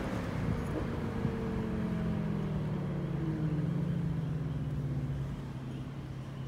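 Car engine whose note falls in pitch over the first three seconds or so, then holds steady and low.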